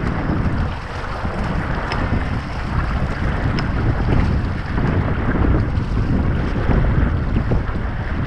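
Wind buffeting the microphone over the splash and rush of river water as a crew paddles an inflatable raft.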